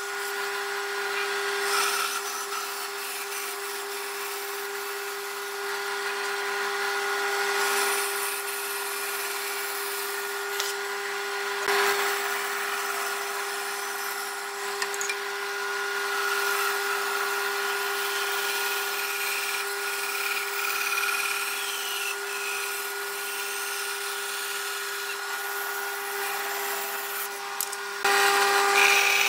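Band saw running and cutting a curve through a wooden board: a steady motor hum with the hiss of the blade in the wood. Near the end it gets louder as the blade goes into a thick wooden piece.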